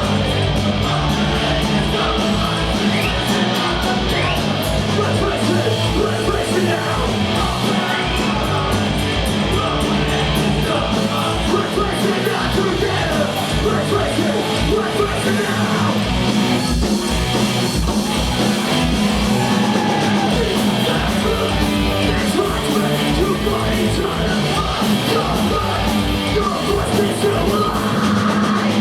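Punk rock band playing live: loud distorted guitars and a fast, driving drum beat under shouted vocals.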